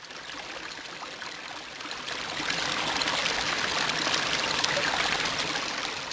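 Flowing, trickling water sound effect: a steady rush that swells gradually to its loudest around the middle and begins to fade near the end.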